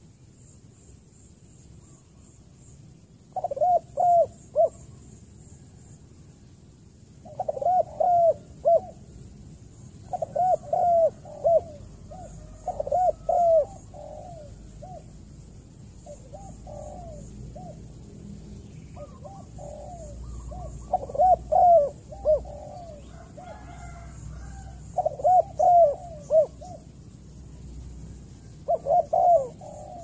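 Spotted dove cooing: short phrases of three to five soft coos, repeated every few seconds.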